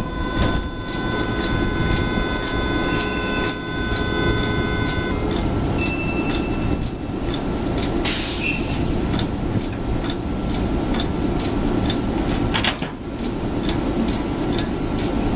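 Kintetsu 12200 series electric train standing at a station platform, its onboard equipment humming steadily with regular ticking. A steady high tone stops about five seconds in, and a short hiss of air comes about eight seconds in.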